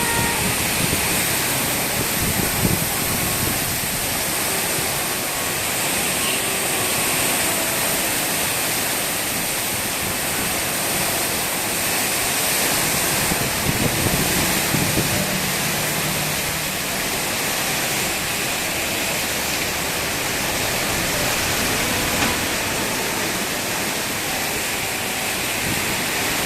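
Heavy rain pouring down in a windstorm, a dense, steady hiss with no let-up.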